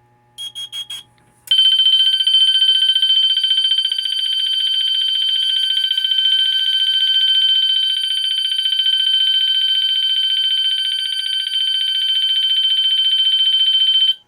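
Carbon monoxide alarm sounding on a test activation: four quick high beeps about half a second in, then a loud, continuous high-pitched tone with a fine buzz that holds for about thirteen seconds and cuts off suddenly.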